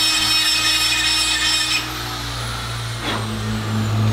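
Roto Zip spiral saw with a fine bit trimming a carbon fiber diffuser tab, running at a high whine for about two seconds. It is then switched off and its whine falls slowly as it spins down. A short knock comes about three seconds in.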